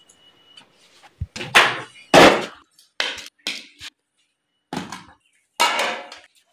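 A string of about eight separate knocks and thuds, some ringing briefly, from a cooking stove and its cookware being set in place.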